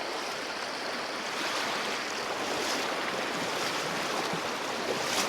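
Fast creek current rushing steadily, with water splashing and swirling as a person wades across it against a strong flow.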